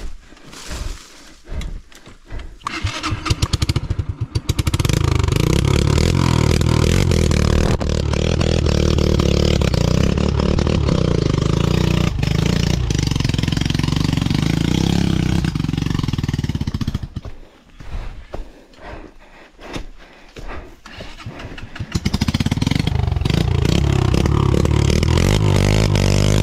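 Yamaha XTZ 125's single-cylinder four-stroke engine. After a few seconds of scattered knocks it starts and runs at high revs, labouring under load. It drops away for several seconds and then runs loud again near the end.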